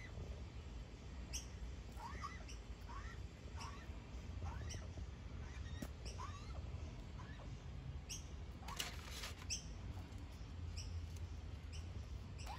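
Juvenile Australian magpie giving short, squeaky begging calls over and over, about one a second, each a quick rise and fall in pitch: a fledgling asking to be fed. A brief rustle comes about nine seconds in.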